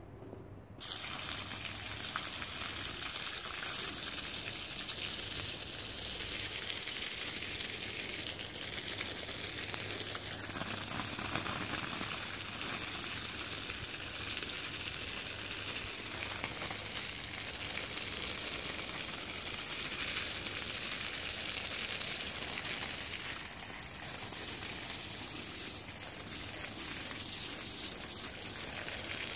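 A stream of water gushing and splashing steadily onto a thick, soaked shag rug, starting up about a second in.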